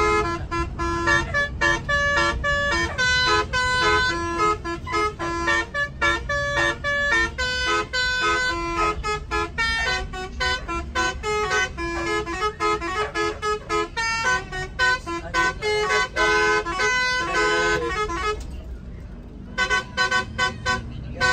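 A bus's telolet musical air horn playing a quick tune of short notes that step up and down in pitch, several tones at once, over the low rumble of the bus. It breaks off briefly near the end, then starts again.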